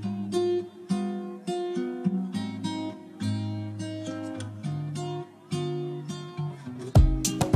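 Background music: acoustic guitar picking a melody, with a drum beat coming in near the end.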